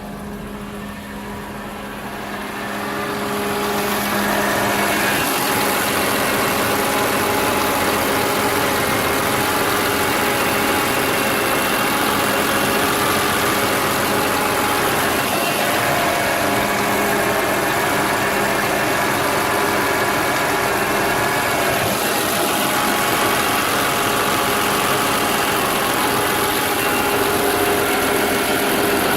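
BMW E46 M3's S54 inline-six engine running steadily, growing louder over the first few seconds and then holding level. It carries a noise that developed in normal driving and that the owner takes for possible rod knock.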